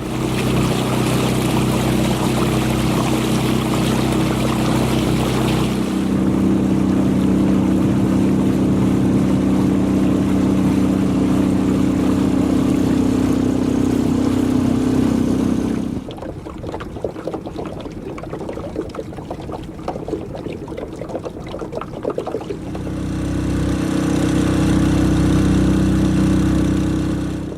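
A boat's outboard motor runs steadily under way, its pitch stepping up at about six seconds as the throttle opens. At about sixteen seconds the motor drops back, leaving water splashing and rushing against the hull, and it runs again from about twenty-three seconds before easing off at the very end.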